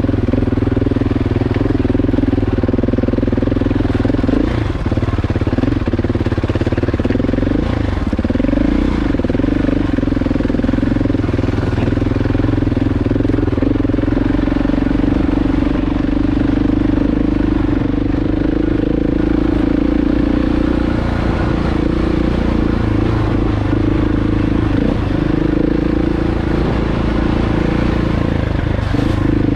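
KTM 690 Enduro R's single-cylinder engine running at steady riding revs on the move, with brief rises and dips in pitch as the throttle changes.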